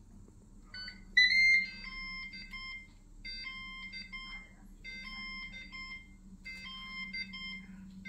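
Ninja Foodi MAX 15-in-1 multi-cooker (OL750UK) sounding its electronic end-of-cook alert: a loud beep about a second in, then a short tune of beeps repeated about every one and a half seconds. It signals that the pressure-cooking time is up and the pressure is ready to be released.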